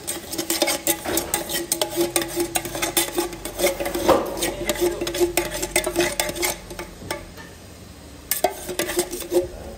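Milk poured into hot vegetable oil in an aluminium pot, crackling and spitting with many sharp pops. Near the end a metal spoon stirs and scrapes against the pot.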